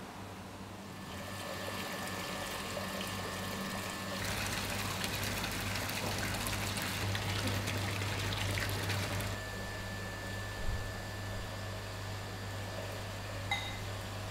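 Water churning and splashing in a tank. The rushing starts about four seconds in and stops about nine seconds in, over a steady low hum. A couple of small clicks come near the end.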